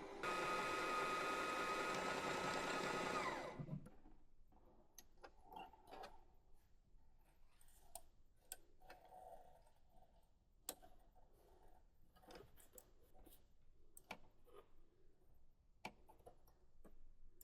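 SINGER Heavy Duty HD6805C sewing machine's motor running at a steady speed for about three and a half seconds, then winding down in pitch and stopping. Scattered light clicks and knocks of the machine being handled follow.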